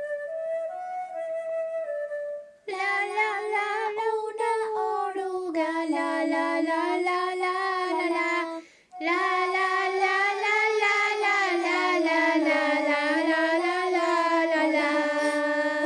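Cartoon soundtrack played from a TV: a short flute melody, then a girl's singing voice with vibrato over light accompaniment, breaking off briefly about halfway through before going on.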